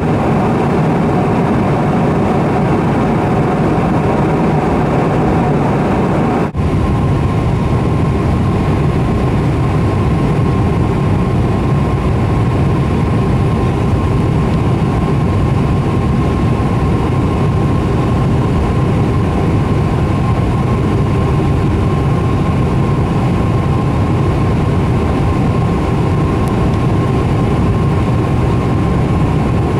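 Steady cabin noise inside a large four-engine airliner on its descent: the drone of the engines and rushing air, heard from a window seat. It breaks off for an instant about six and a half seconds in, and a faint steady whine runs on under it after that.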